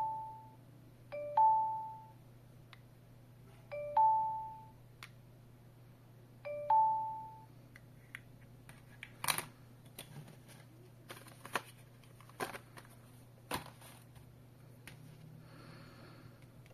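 Smart alarm hub sounding a two-note ding-dong chime four times over the first seven seconds, each time the door/window contact sensor is triggered by moving it against its magnet. After that, scattered light clicks and taps.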